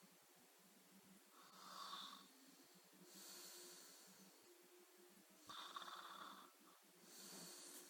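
A person snoring quietly: two snores, each followed by a hissing breath, about one breath cycle every four seconds.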